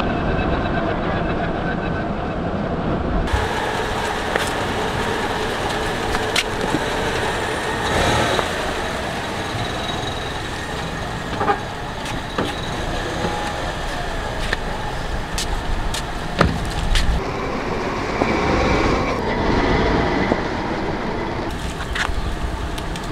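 Steady vehicle noise with a low rumble, broken by sharp clicks or cracks every few seconds.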